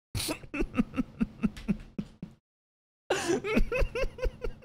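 A man laughing hard in two long fits of rapid, pulsing "ha-ha" laughter, about four or five pulses a second, with a short break between them.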